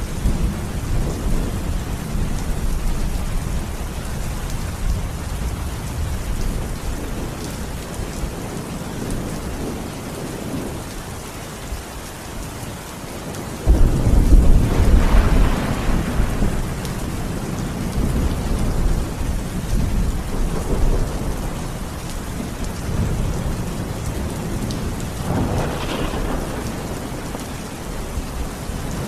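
Steady heavy rain falling, with a sudden loud thunderclap about halfway through that rumbles on for a few seconds, and a second, weaker roll of thunder near the end.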